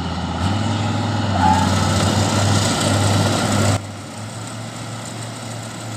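Kubota combine harvester's diesel engine running steadily with loud mechanical noise as the machine drives. About four seconds in, the sound drops suddenly to a quieter, steady engine hum.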